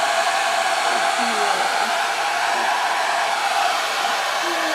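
Handheld hair dryer running steadily, a constant rush of blown air with a steady whine, drying a wet miniature poodle puppy's coat.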